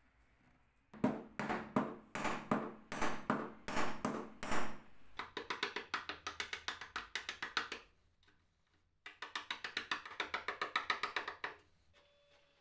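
Steel wood chisel being struck to chop out old wood at a cabinet frame joint. It starts as a string of separate blows, then two runs of quick, even light taps with a short pause between them.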